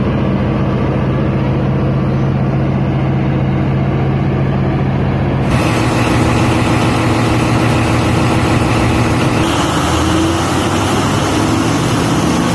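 Heavy diesel engine running steadily. About five and a half seconds in, the sound changes abruptly to the fuller, louder running of a 2 MVA Powercity diesel generator set heard up close in its engine room, running during synchronisation pre-testing.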